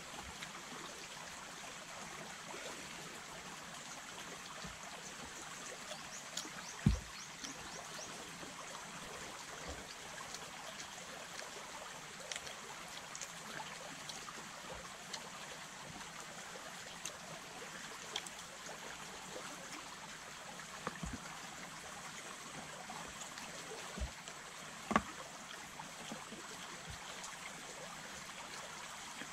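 Small river flowing steadily, a soft even rush of water, with a few short sharp knocks and clicks now and then, two of them standing out louder.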